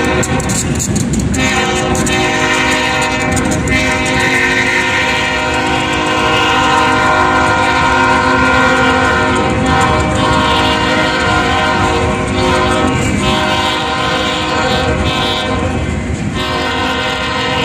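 Freight train locomotive's horn blowing a long, held chord over the rumble of the passing train, breaking briefly about a second in and easing off near the end.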